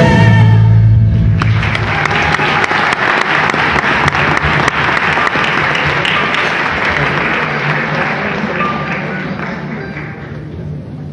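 A band's closing chord, over a drum kit, rings and stops about a second in. An audience applauds after it, dying down near the end.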